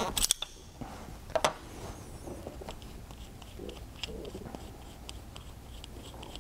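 Metal clicks and taps from a wrench unscrewing the Foster quick-connect fitting on an FX Crown air rifle's action, with a sharper clack about a second and a half in as a wrench is set down on the bench, then small ticks of the fitting being turned out by hand.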